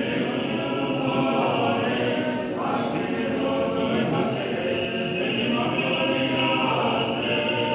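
Voices singing an Orthodox Easter chant together, a continuous unaccompanied hymn.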